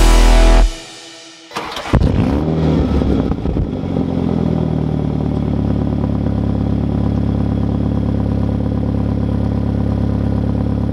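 A deep low boom that cuts off sharply, then an engine starts with a brief rev that rises and falls back, and settles into a steady idle.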